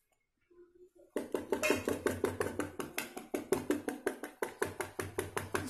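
Wire whisk beating cake batter in a plastic mixing bowl: fast, even clicking strokes, about six a second, starting a little over a second in.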